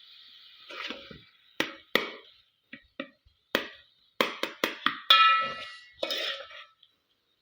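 Cookware and utensils knocking and clattering in a series of sharp irregular knocks. The loudest, about five seconds in, has a brief metallic ring.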